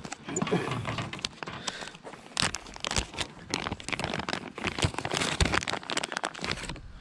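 Irregular crinkling and crackling, with scattered sharp clicks and knocks.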